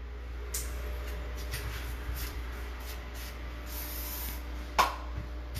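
Workshop noise: short hisses and rustles over a steady low hum, with one brief, louder sharp sound near the end.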